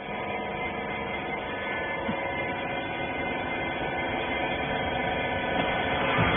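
Twin-ram rag baler's hydraulic power unit running with a steady, many-toned hum that grows slightly louder.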